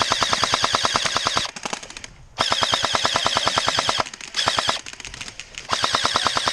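Airsoft electric gun firing full-auto bursts close to the microphone: a rapid, even clatter of shots over the gearbox whine. It runs as a long burst, a pause near the middle, another long burst, a short one, then a burst near the end.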